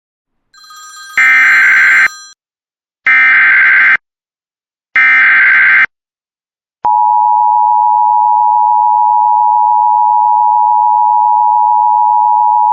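Emergency Alert System SAME header: three short bursts of rapid digital data tones, about a second apart. About seven seconds in, the steady EAS attention tone starts and holds. Together they open a new emergency alert, here a severe thunderstorm warning.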